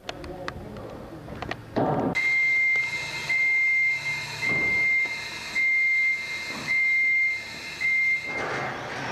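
Genie GS-1930 scissor lift's motion alarm beeping: six long beeps of one steady high tone, about one a second, starting about two seconds in, the warning that the platform is moving. A few sharp knocks come just before the beeps.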